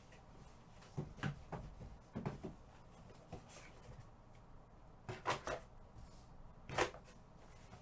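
Handling noise: several short, light knocks and clicks of things being picked up and set down, coming in small clusters with quiet between them, the sharpest one near the end.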